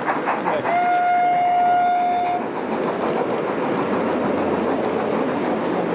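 Sound-fitted model GWR pannier tank steam locomotive: a brief rhythmic chuffing, then one long steady whistle blast of about a second and a half, which cuts off sharply. A steady murmur of hall noise follows.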